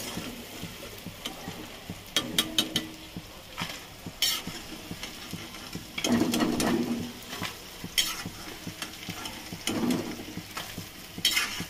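Battered chicken pieces sizzling in hot oil in a kadhai, with a metal spoon stirring and clinking against the pan as the fried pieces are lifted out into a steel bowl. Several sharp metal clinks stand out over the steady frying hiss.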